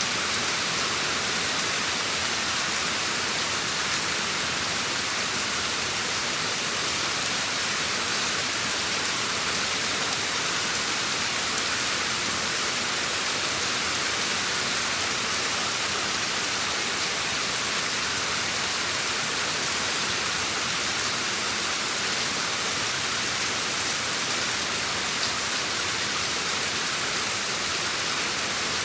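Steady rain falling: an even, unchanging hiss, bright rather than deep, with no single drops standing out.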